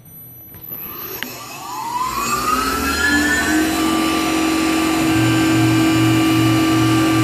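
Tormach PCNC 1100 CNC mill spindle spinning up to speed at the start of a program: a click about a second in, then a rising whine that settles into a steady running tone. About five seconds in, a low hum joins it, pulsing about twice a second.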